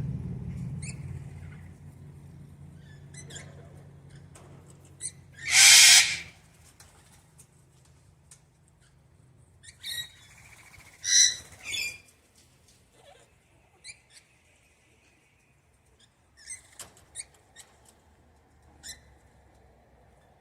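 Wild parrots calling: one loud harsh squawk about six seconds in, another shrill call near eleven seconds, and scattered short chirps and clicks between. A low rumble fades away over the first few seconds.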